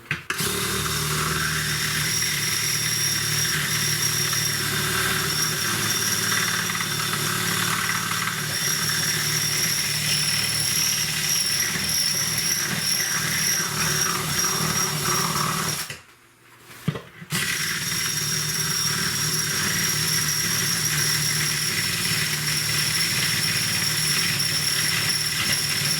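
A power tool running steadily with a high whine as it cuts into a plastic panel, hot enough to burn the plastic. It stops for about a second roughly two-thirds of the way through, then starts up again.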